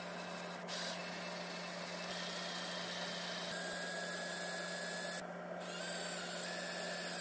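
Cordless drill running as a twist bit bores through a small turned wooden piece, a steady whirring with a constant low hum. The sound changes slightly in character a few times and dips briefly about five seconds in.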